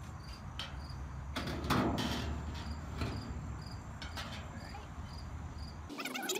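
Sheet-steel cabinet back panel being set down and shifted on the cabinet's steel frame: a few light metal knocks, then a louder clattering scrape about two seconds in. Crickets chirp steadily about twice a second underneath, until the outdoor sound cuts off just before the end.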